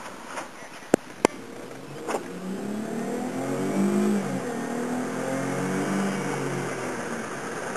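Mercedes-Benz sedan's engine accelerating, heard from inside the cabin: the note climbs in pitch for about a second and a half, then holds steadier. Two sharp clicks come about a second in.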